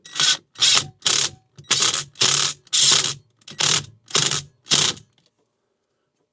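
Power drill run in about nine short trigger pulses over five seconds, driving in fasteners.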